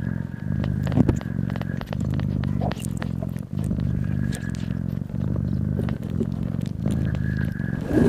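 Mother cat purring loudly while nursing her newborn kittens. The purr comes in stretches of about a second and a half, breaking briefly between breaths, with scattered small clicks over it.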